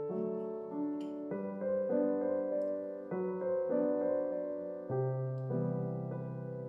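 Background music: a gentle solo piano piece, its notes changing every half second or so.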